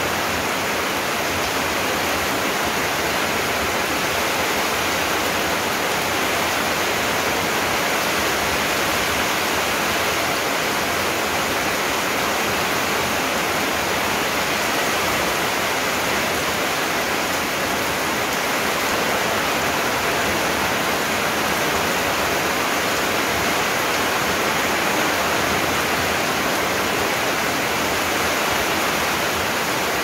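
Heavy rain pouring steadily onto leaves, bare earth and a paved path: a dense, even hiss with no single drops or thunder standing out.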